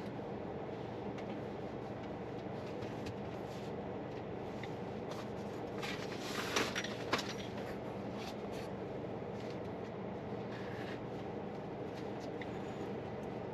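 Steady low hum inside the cabin of a parked SsangYong Torres, with a few light clicks and a brief rustling rub with two sharp clicks about six to seven seconds in.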